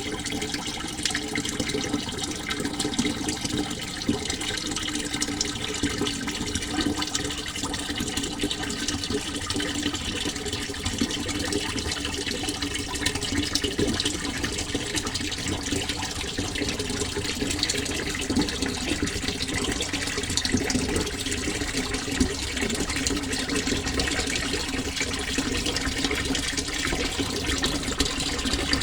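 Water flowing and splashing steadily, a continuous even rush with a fine, fluttering texture.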